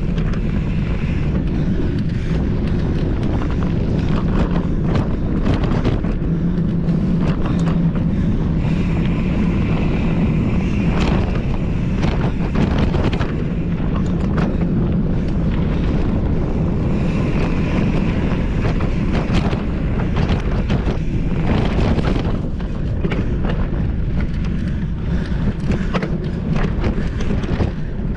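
Mountain bike ridden at race pace on a dirt trail: steady wind rush on the microphone with constant rattling and clatter over rough ground, and a thin high whir that comes and goes.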